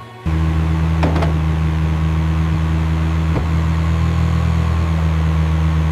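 Tractor engine sound effect cutting in suddenly and running at a steady low drone, as if pulling a heavy load.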